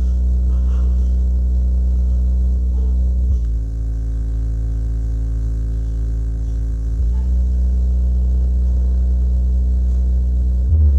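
Fredo Pro 5-inch subwoofer, driven by an IC amplifier, playing loud, steady deep bass tones. The pitch shifts abruptly about a third of the way in and again just past halfway, with a short jump in level right at the end.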